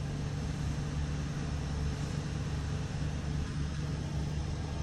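Supercharged 4.2 V8 of a 2005 Jaguar XJR idling steadily, heard from inside the cabin. It has just been restarted after an upstream O2 sensor replacement and a battery disconnect, and the owner says it is running badly while the engine computer relearns.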